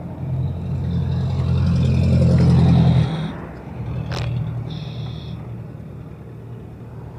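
A motor vehicle engine running, its low hum growing louder for about three seconds and then dropping off suddenly before carrying on quieter. A single sharp knock comes about four seconds in.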